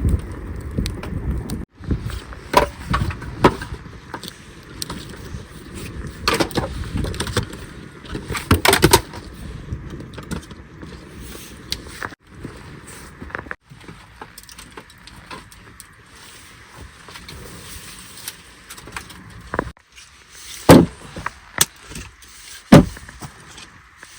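Scattered knocks and thumps at irregular intervals, the two loudest near the end.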